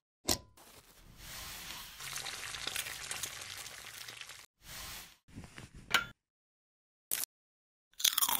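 A plug clicks into a wall socket, then a steady sizzling like food frying runs for about three and a half seconds. A few short clicks and knocks follow, one of them sharp and loud.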